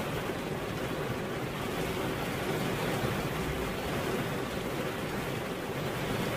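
Steady rain falling, an even continuous hiss with no break or change.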